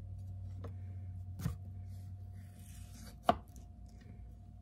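Kitchen knife cutting an avocado on a cutting board: quiet scraping with a few sharp knocks, the loudest about three seconds in.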